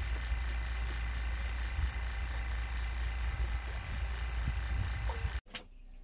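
Small electric refrigeration vacuum pump running steadily while evacuating a mini-split's refrigerant lines. It is a low, even hum that stops abruptly near the end, leaving quiet room sound.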